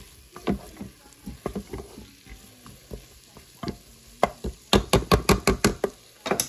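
Wooden spoon stirring chopped vegetables sautéing in a Drew & Cole multicooker's pot: irregular scrapes and knocks, then a quick run of about a dozen strokes near the end, over a faint sizzle.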